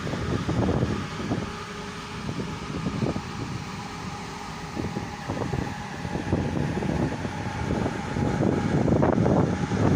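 Wind buffeting the microphone in uneven gusts over the ferry's steady mechanical hum, with the gusts growing stronger near the end.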